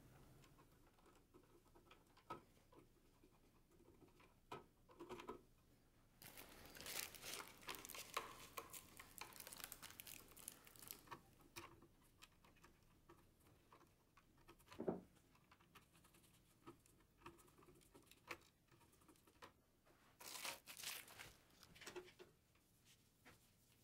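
Faint handling sounds: gloved hands rustling against cable and plastic, with scattered small clicks and taps while wires are fitted into a terminal block. There are two longer bursts of rustling and one sharper knock about fifteen seconds in.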